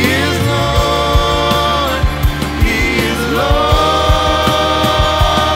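Worship song: a choir singing long held notes, changing chord about two seconds in and again a second later, over a band with bass and a steady drum beat.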